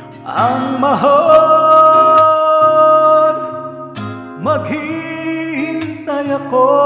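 A man singing a Tagalog love ballad over a karaoke backing track. He slides up into a long held note in the first few seconds, then starts a new phrase about four and a half seconds in.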